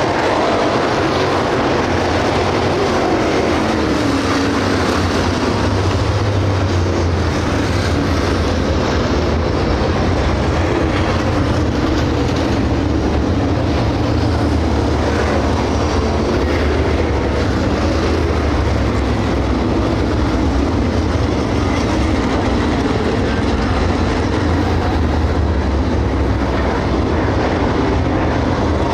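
Several dirt late model race cars' GM 602 crate V8 engines running together as the field laps the track, a steady loud rumble with no single rev standing out.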